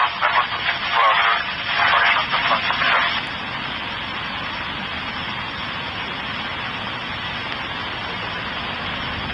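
Indistinct voices for about the first three seconds, then a steady rushing noise.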